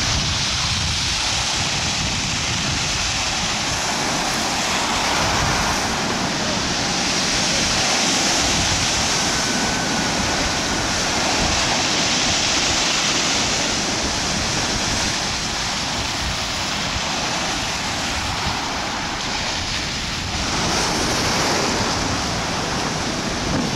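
Stormy Black Sea surf breaking on the shore in a continuous wash that swells with each wave every few seconds. Wind buffets the microphone throughout.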